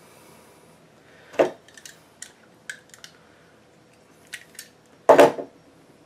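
Small clicks and ticks of hands working a utility knife on RG59 coax cable, cutting back and pulling off the PVC outer jacket. One sharp click comes about a second and a half in, and a louder knock comes near the end.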